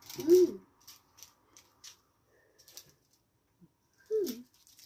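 Small plastic bags of round resin diamond-painting drills handled in the fingers, giving light crinkles and clicks of the beads. Two short wordless voice sounds, about half a second in and near the end, are the loudest sounds.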